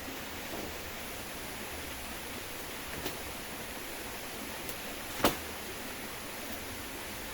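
Heavy tropical rain falling steadily, a dense even hiss, with a few sharp taps; the loudest comes about five seconds in.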